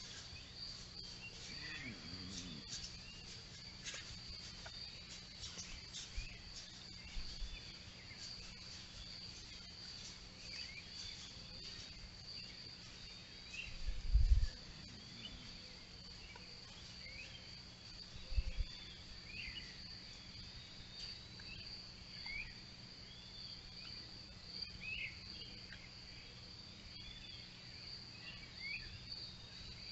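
Steady high-pitched trill of night insects such as crickets, with scattered short chirps of early birds over it. Two dull low thumps come about halfway through and again a few seconds later.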